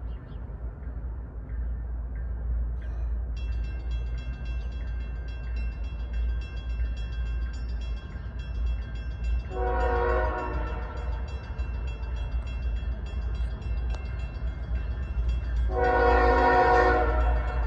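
Norfolk Southern diesel locomotive's air horn sounding two blasts of about a second and a half each, one about ten seconds in and one near the end, as the double-stack freight train approaches. Underneath runs a low rumble, and from about three seconds in a faint, steady high ringing.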